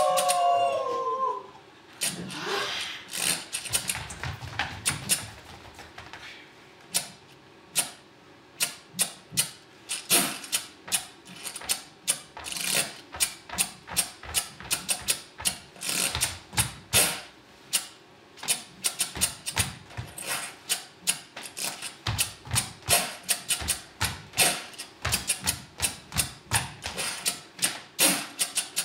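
Wooden abacus beads clicked and rattled by hand as a percussion solo: a long run of sharp clicks, sparse at first, then dense and rhythmic. A few gliding voices sound at the very start.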